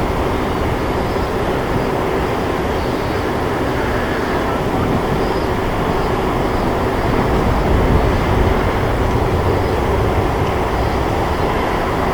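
Steady rumbling noise of a large jet aircraft's engines mixed with heavy wind on the microphone, swelling slightly about eight seconds in.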